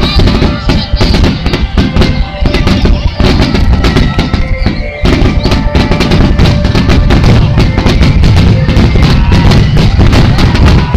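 Rapid barrage of aerial fireworks bursting in a starmine finale, with music playing along. About five seconds in, the explosions come thick and continuous and drown out the music.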